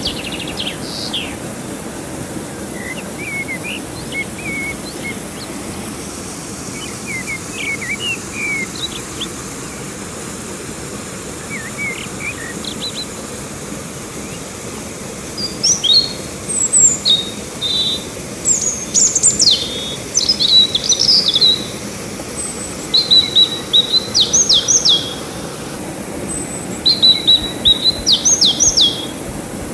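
Songbirds chirping over a steady rush of river water. From about halfway through, a nearby bird sings loud, rapid phrases, repeated several times with short pauses between them.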